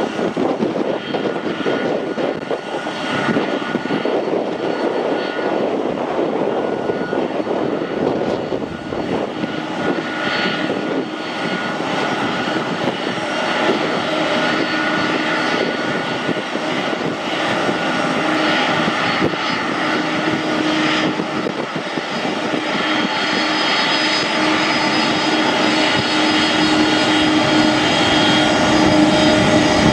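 Boeing 767-322ER's twin jet engines at taxi idle: a steady jet whine and rumble, growing louder toward the end as the airliner taxis past.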